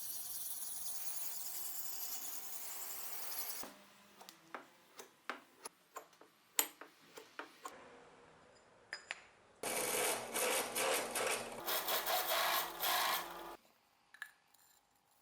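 Hand-work on a tool in a workshop: a steady abrasive rubbing that stops abruptly, then scattered clicks and taps of tools being handled, then another few seconds of rough, pulsing rubbing, and a few faint clicks near the end.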